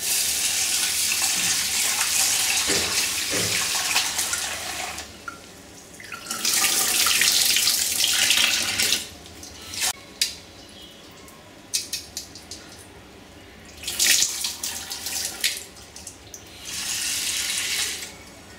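Tap water running into a stainless-steel pot as rice, then toor dal, is rinsed in a steel sink. The water comes in four spells of a few seconds each, with quieter gaps between them holding a few small knocks.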